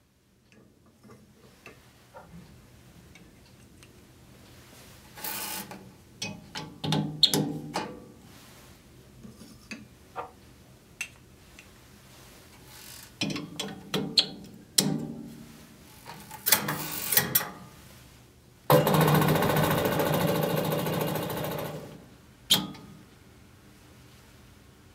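Clicks and knocks of sample tubes being filled with water, stoppered and clipped into a Shakematic tube shaker. About 19 s in, the Shakematic rattles the tubes fast and loudly for about three seconds, mixing the flour and water, then winds down, followed by a single click.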